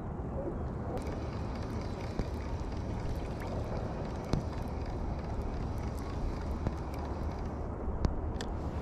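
Steady low outdoor rumble with a faint hiss, broken by a few faint clicks.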